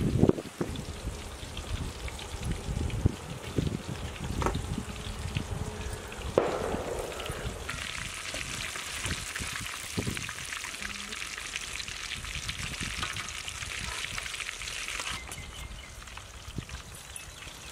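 Chicken pieces deep-frying in hot oil in a kadai, a dense steady sizzle that grows louder about eight seconds in and eases off near the end. A few knocks of handling and utensils come before the sizzle strengthens.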